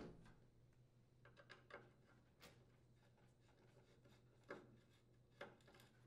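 Near silence with a few faint clicks and taps from a Phillips screwdriver working the screws on a range's sheet-metal wire retainer.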